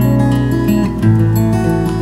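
Background instrumental music led by acoustic guitar, with held notes that change about a second in.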